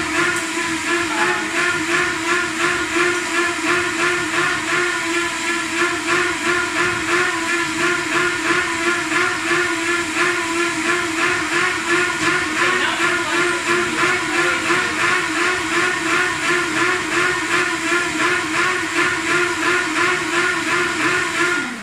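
Countertop blender running at high speed, pureeing cooked pumpkin and water into soup: a loud, steady motor whir with a regular pulsing churn. It cuts off abruptly near the end.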